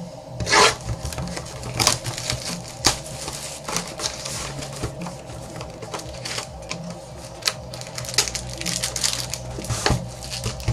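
A box of basketball trading cards being opened and handled: irregular clicks, crinkling and rustling of cardboard and packaging.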